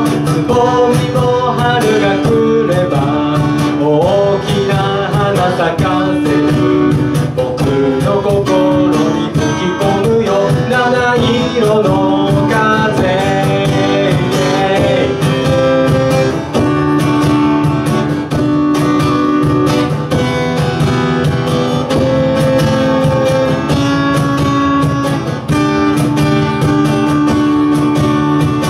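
Acoustic guitar and cajon playing a song live, a duo of strummed guitar chords over the cajon's beat, with a melody line moving over sustained notes.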